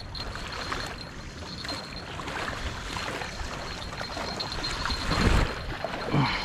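Wind blowing across the microphone and small waves lapping at the muddy river bank, with a stronger gust about five seconds in.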